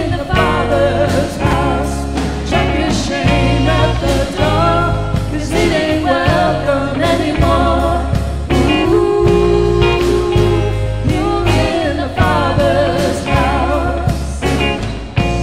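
Live contemporary worship band playing: vocalists singing a melody over acoustic and electric guitars and a drum kit.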